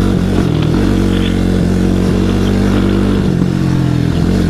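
Honda Grom's single-cylinder four-stroke engine running steadily while the motorcycle is ridden, heard close up from the handlebars. The engine note steps slightly about three seconds in.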